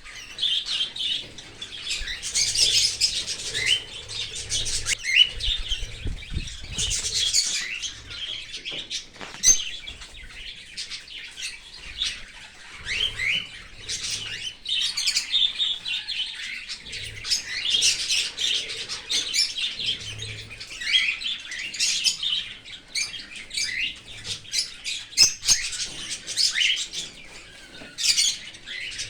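Cockatiels chirping nonstop in an aviary: many short, rapid, high calls that overlap, with a cockatiel chick begging as the adult feeds it.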